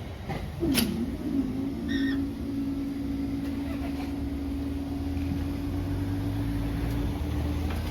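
A train by the line giving a steady, even hum with a low drone beneath it. The hum starts about a second in with a brief dip and rise in pitch, holds level, and cuts off suddenly near the end.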